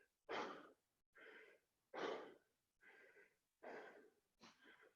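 Faint, heavy, rhythmic breathing of a person out of breath from doing burpees, with alternating louder and softer breaths about one every second.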